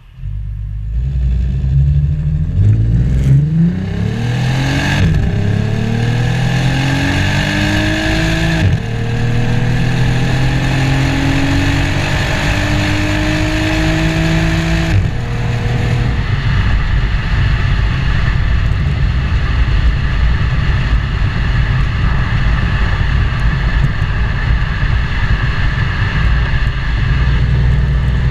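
Volkswagen Passat CC's 3.6 FSI VR6 engine and exhaust pulling the car away under acceleration: the pitch climbs, breaks at a gear change about nine seconds in, climbs again until about fifteen seconds in, then settles into a steady drone at cruising speed.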